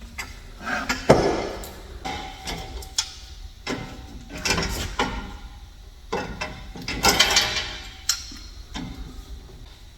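Irregular metal knocks, clanks and scraping as exhaust pipes are worked and tapped into place, about half a dozen sharp hits in all, the loudest about a second in and around seven seconds.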